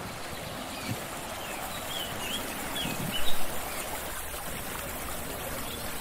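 Steady rush of river water flowing over shallow rapids and rocks. A small bird chirps several times about halfway through, and a low thump comes at about the same time.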